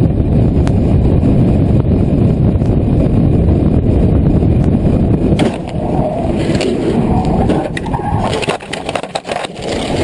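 Steady low road and engine noise from inside a moving car. About five seconds in, a crash begins: grinding and scraping, then a run of sharp knocks and bangs near the end as the car tumbles.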